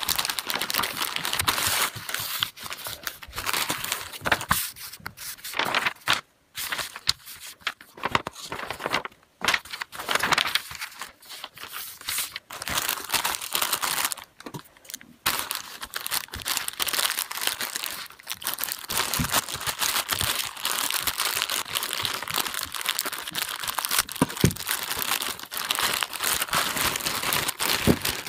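Clear plastic packaging bags crinkling and rustling as they are opened and handled, near-continuous with a few brief pauses.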